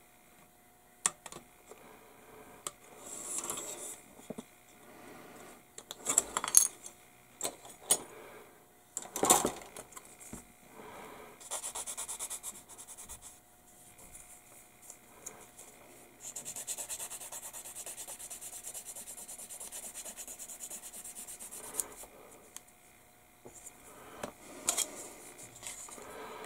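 A sharp click about a second in as a small plastic part is cut from the sprue, then a sanding stick rubbing on the plastic part's edge in short stretches, with a longer steady spell of sanding about two-thirds of the way through. Knocks and scrapes of plastic parts being handled on the cutting mat come in between.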